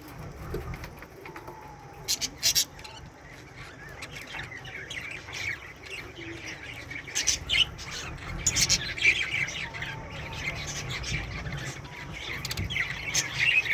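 Budgerigars chirping and squawking, with a few short sharp flutter-like sounds about two seconds in and again around seven to nine seconds in.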